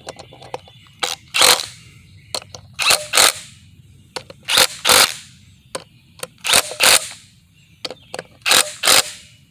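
Impact wrench fired in short rattling bursts, about five pairs roughly two seconds apart, running bolts down one after another in a criss-cross pattern so the part seats evenly.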